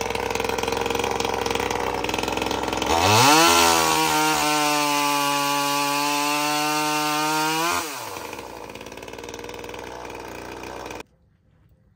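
Greencut GS250X two-stroke petrol top-handle chainsaw cutting through logs for firewood. Its revs climb steeply about three seconds in, hold high, then drop back to a quieter running note near eight seconds, and the sound cuts off abruptly about a second before the end.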